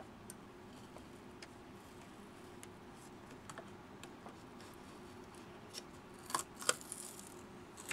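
Small clicks and scrapes of a hand tool prying a 3D-printed ABS plastic part off the blue painter's-tape-covered build platform of a 3D printer, with a few sharper, louder clicks about six and a half seconds in.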